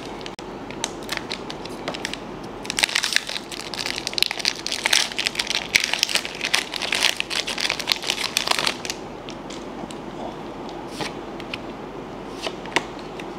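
Foil booster pack wrapper crinkling as it is torn and pulled open by hand: scattered crackles at first, a dense stretch of crinkling from about three to nine seconds in, then a few scattered clicks.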